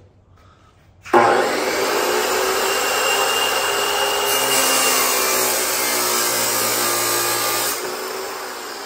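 DeWalt abrasive chop saw starting up about a second in and cutting through steel rebar, a loud steady grinding of the abrasive wheel for about six seconds. The sound drops off near the end as the cut finishes and the wheel winds down.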